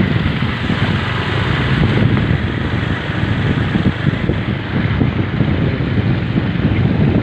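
Steady, loud rush of wind buffeting the microphone over a vehicle pushing through floodwater, with water churning around it.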